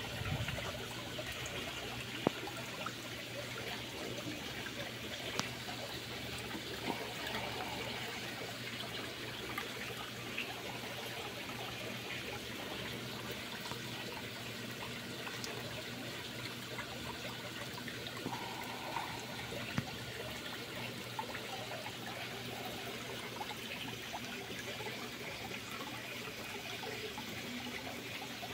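Steady trickle of running water, with a few faint ticks.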